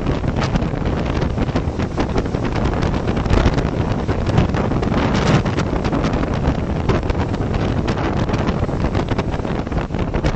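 Strong gusting wind buffeting the microphone, a constant loud rumbling flutter over the rush of rough sea surf.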